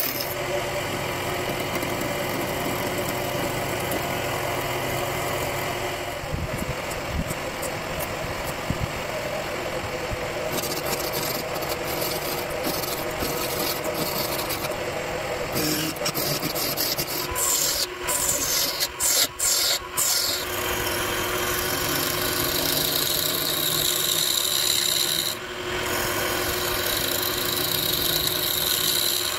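Wood lathe running while a hand-held turning chisel cuts into the spinning wooden blank, a steady scraping hiss of shavings peeling off over the hum of the lathe's motor. The cutting breaks off in several short gaps about two-thirds of the way through as the tool is lifted and set back to the wood.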